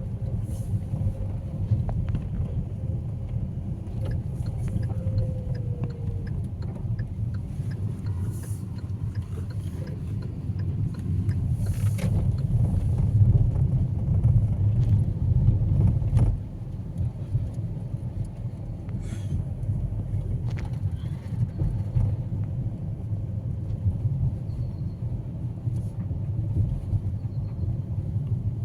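Steady low rumble of a motor vehicle running, louder for a few seconds in the middle and dropping suddenly about sixteen seconds in.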